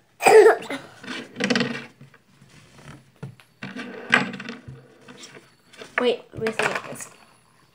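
Children's voices in short wordless exclamations and mumbles, several times, with knocks and rustles of handling close to the microphone.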